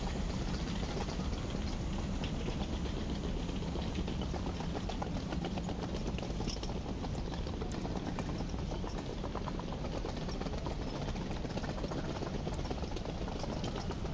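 Busy city street ambience: a steady low rumble with many small clicks and taps scattered through it.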